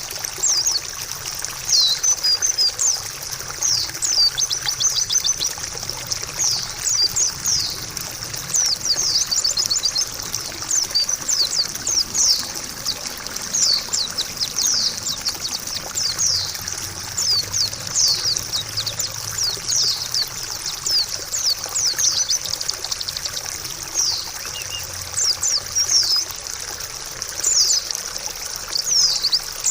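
White-eye (pleci) singing a long run of quick, high chirps and twittering trills over the steady sound of trickling water.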